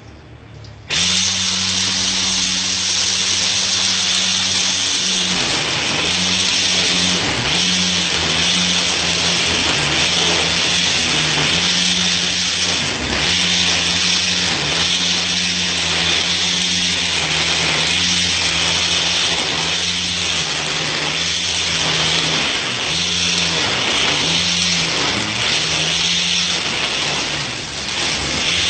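Homemade string trimmer driven by an old blender's electric motor, switching on suddenly about a second in and running steadily. Its pitch dips briefly every few seconds as the motor is loaded by cutting tall grass.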